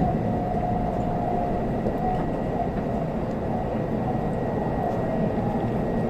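Interior running noise of an N700S Shinkansen, heard from inside the passenger cabin: a steady low rumble of the wheels on the rails with a faint high steady whine, as the train nears a station.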